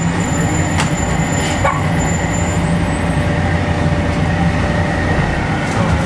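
Volvo B7TL double-decker bus heard from inside while under way: a steady engine drone that holds its pitch, with a few brief knocks and rattles from the body.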